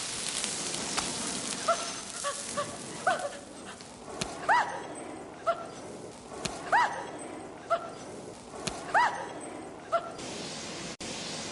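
Blowtorch flame hissing over the first few seconds, then a man's short, high-pitched whimpering yelps, about one a second, with louder cries every couple of seconds.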